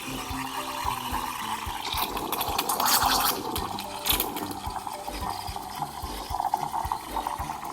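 Liquid splashing and gurgling, with louder hissy bursts about two and four seconds in, over soft background music.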